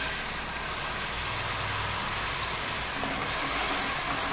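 Lemon juice sizzling and bubbling in hot tempering oil in an aluminium kadai: a steady hiss.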